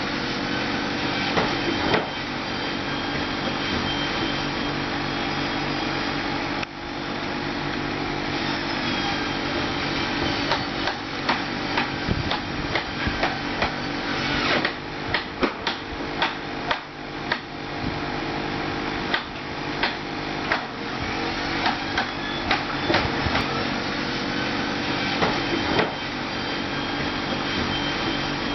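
Engine of a digging tractor running steadily with a high whine, with a run of sharp metallic clanks and knocks from about twelve to twenty-two seconds in.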